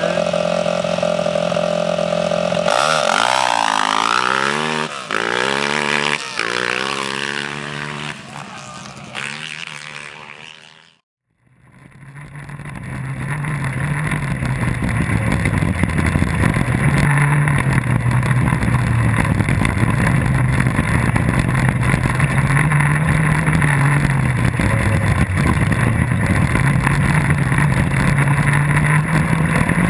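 Quad bike engine idling at the start line, then revving hard and pulling away through several gear changes, rising and falling in pitch as it fades into the distance. After a brief cut, a single-seat off-road buggy's engine drones loudly and continuously from inside the car as it drives flat out along a dirt stage, its pitch wavering.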